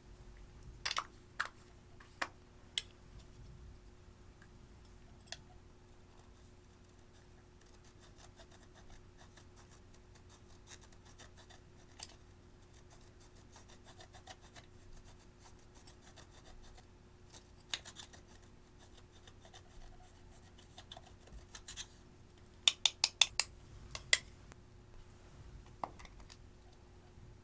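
Pressed eyeshadow and small tools being handled close to the microphone: faint scraping with scattered sharp clicks, then a quick run of about six loud clicks near the end.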